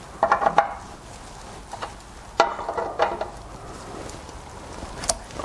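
A 13 mm wrench tightening the nuts of an exhaust pipe clamp at the rear silencer joint: two short runs of quick metallic clicks, the first just after the start and the second about two and a half seconds in, with a single sharp click near the end.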